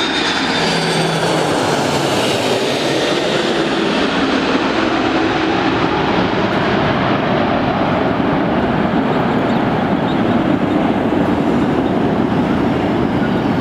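Jet engine roar of a twin-engined Airbus A330-200 landing, with a high whine that falls in pitch over the first couple of seconds as it passes, then a loud, steady roar.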